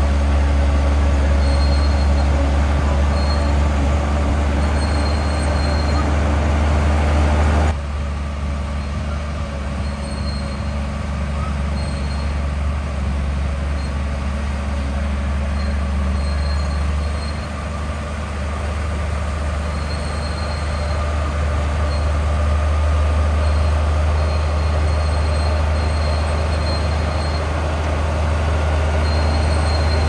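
Bulldozer's diesel engine running steadily at work, with short high-pitched squeaks from the running gear coming and going. The sound drops abruptly in level about eight seconds in, then builds back up.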